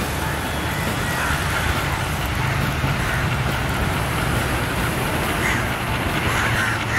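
Diesel locomotive engine running with a steady low rumble as the train approaches slowly, mixed with street traffic noise.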